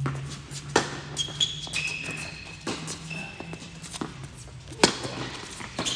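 Tennis rally on an indoor hard court: sharp pops of rackets striking the ball and the ball bouncing, starting with a kick serve, the loudest hit just before the end. Sneakers give short high squeaks on the court in between.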